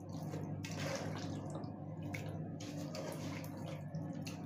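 Washed raw chicken pieces dropped by hand into a plastic bowl of dry spice mix, making soft wet plops, over a steady low hum.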